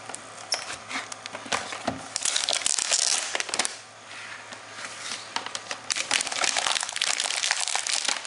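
Packaging crinkling and rustling as the new router is unwrapped by hand, with many small crackles. The crinkling is thickest about two to four seconds in, eases briefly, then picks up again.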